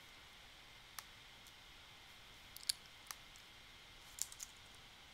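Computer mouse clicking: a handful of short, sharp clicks at irregular intervals over a faint steady hiss.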